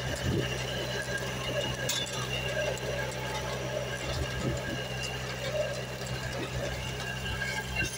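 Small water-well drilling rig running steadily: its electric motor drives the drill rod, giving a constant low hum with a thin high whine over it and a few light knocks.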